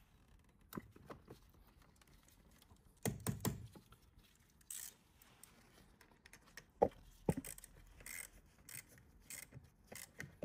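Small metal clicks, clinks and scrapes of a spanner and battery terminal clamp being fitted and tightened onto the negative post of a car battery, with a cluster of knocks about three seconds in and two sharp clicks about seven seconds in.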